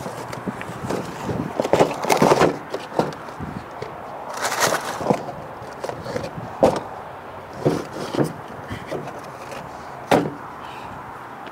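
Boxes and household items being loaded into a pickup truck's bed: irregular knocks and thumps of cardboard and objects set down and shifted, with rustling.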